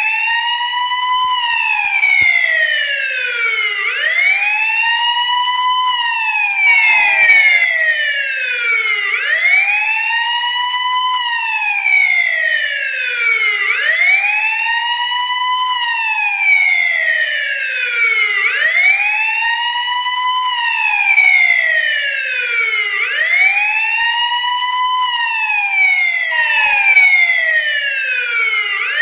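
Police siren wailing: each cycle rises quickly in pitch and then falls more slowly, repeating about every four to five seconds.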